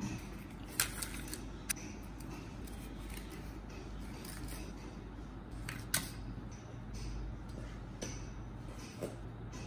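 Small sharp clicks and light rustling as paper cupcake liners are set into a metal muffin tin and batter is spooned into the cups, with a faint low hum coming in about halfway.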